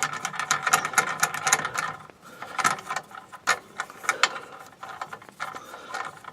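Rapid clicking from the lever being unscrewed at the back of a Titan planer thicknesser. The clicks come thick and fast for about two seconds, then come more sparsely.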